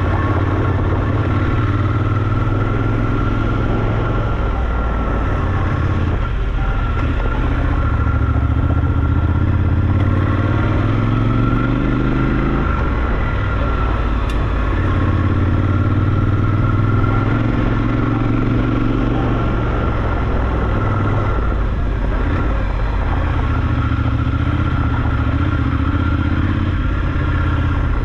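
Triumph Scrambler 1200 XE's parallel-twin engine running under way as the bike is ridden. Its pitch climbs steadily as it accelerates, then drops suddenly about twelve seconds in at a gear change, with further drops in pitch later on.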